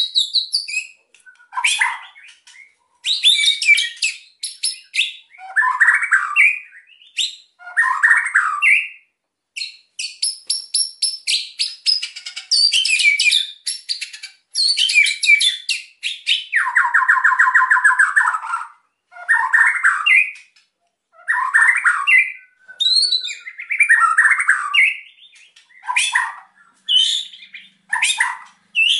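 White-rumped shama (murai batu) singing in agitated bursts, 'kretekan' style: varied whistled phrases broken by runs of rapid dry clicks. A fast rattling trill comes a little past the middle.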